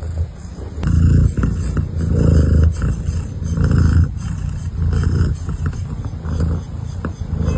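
Domestic cat purring close to the microphone, a low rumble that swells and eases about every second and a half with its breaths.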